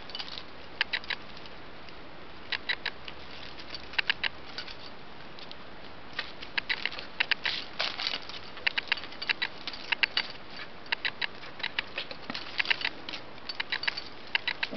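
Irregular light clicks and taps in quick little clusters as a kitten bats at a dangling wand toy, its plastic pieces and small metal rings knocking together and against a tiled floor. The clicks are sparse at first and come thicker from about six seconds in.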